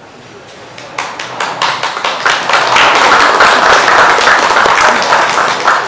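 Audience applause: a few scattered claps about a second in, swelling into loud, steady clapping.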